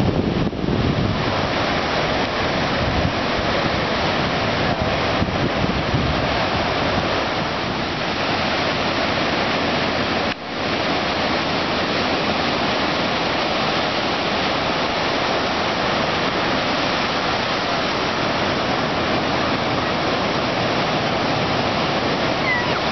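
Ocean surf breaking on a beach: a steady wash of waves, with one brief dip in level about ten seconds in.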